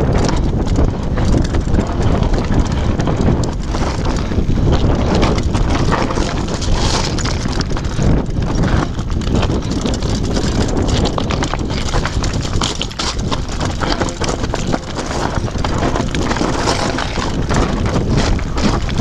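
Downhill mountain bike clattering over loose rocky scree: tyres crunching on stones and the bike rattling with constant small jolts, with wind buffeting the microphone.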